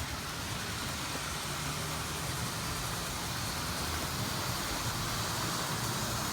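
Model railway locomotive running steadily down a 4% gradient on track laid over foam trackbed, its motor and wheels making an even, continuous running noise.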